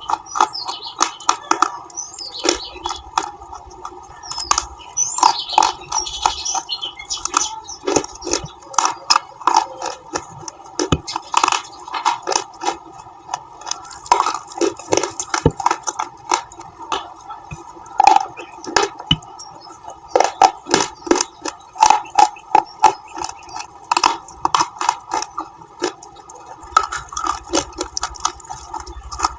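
Close-miked bites into hard colored bars, with sharp crunching snaps and chewing at an irregular pace, several a second at times.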